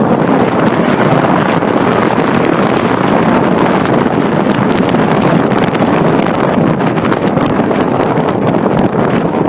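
Loud, steady rushing noise with no voices and no clear tones.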